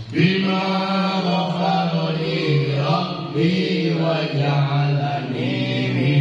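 A man's voice chanting a prayer recitation in long, held notes that step up and down in pitch, with only brief pauses for breath.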